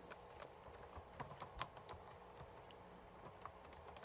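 Faint, irregular clicking of keys on a keyboard as text is typed, several keystrokes a second with uneven gaps.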